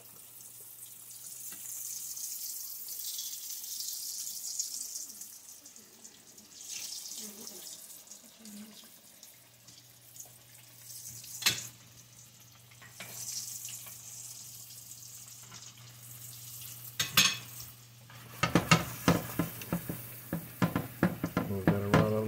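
Dough turnovers frying in hot oil in a cast-iron skillet, a steady sizzle with a couple of sharp clicks. About three-quarters of the way in, a utensil starts stirring and scraping a Cajun-seasoned roux in a stainless pan, a fast run of scraping clicks.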